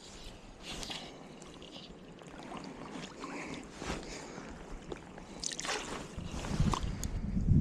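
Stream water splashing and gurgling close to the microphone, in uneven swells with a few sharper splashes, and some wind noise on the microphone.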